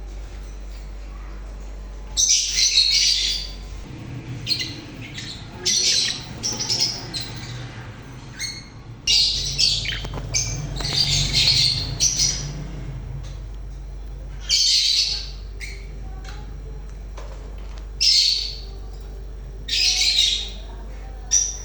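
Small caged parrots squawking: about a dozen loud, harsh calls in irregular bursts, some single and some in quick runs, over a steady low hum.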